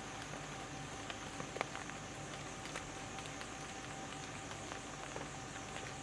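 Forest ambience: a steady hiss under a steady high-pitched drone, with a few scattered light ticks.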